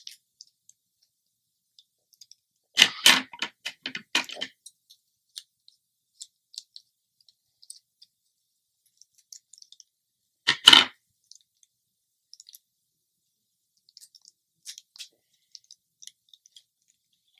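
Plastic blind-bag wrapper crinkling and tearing as it is opened: a burst of crackling about three seconds in, another short crackle past the middle, and faint scattered rustles between.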